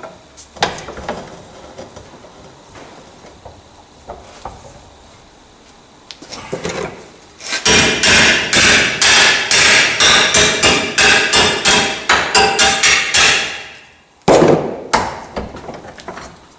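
Hammer blows on steel: a few light knocks, then a fast run of strikes at about five a second for around six seconds, and a shorter burst after a brief pause, as a metal footplate piece is beaten into shape.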